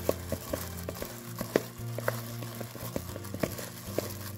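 Background music with steady low notes, over irregular squishing and crinkling from a plastic-gloved hand mixing sliced kimchi with sesame oil and ground sesame.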